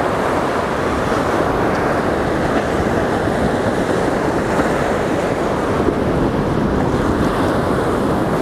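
Ocean surf breaking and washing up the shore: a steady, unbroken rush of noise.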